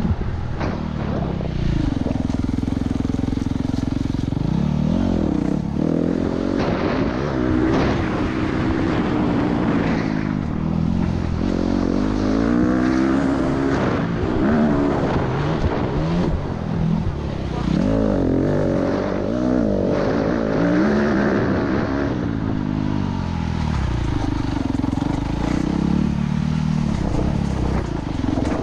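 Yamaha YZ250F four-stroke dirt bike engine revving up and down over and over as it is ridden hard along a dirt trail, its pitch climbing and dropping through the gears. Knocks and clatter from the rough ground are mixed in.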